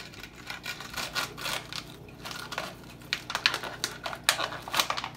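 Thin plastic bottle crinkling and crackling as hands squeeze and work it, an irregular string of sharp crackles that gets louder about three seconds in.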